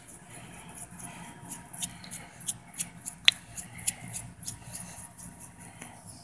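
Salt being shaken from a container over a slug: quick, sharp rattling shakes, about three a second, with one louder sharp click a little after three seconds in.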